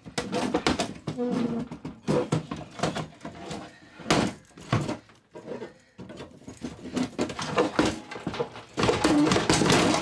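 Pry bar forcing the thin steel lid of a small biometric gun safe: a run of metal clanks, scrapes and short creaks, busiest near the end as the lid is bent open.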